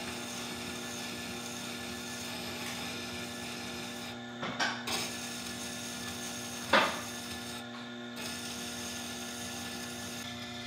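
Tormek T8 water-cooled sharpener running with a steady motor hum while its slow grindstone grinds a skew chisel held in a jig. A few sharp clicks past the middle, the loudest about two-thirds of the way through.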